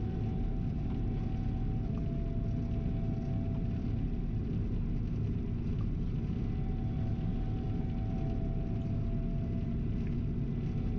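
Gleaner R72 combine harvester running steadily: a low engine drone with a faint whine held above it.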